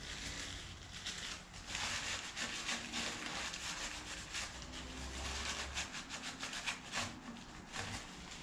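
Gloved hands rubbing and wiping the front of an LQ4 V8 engine block with a rag: a scratchy rubbing with many small ticks and scuffs.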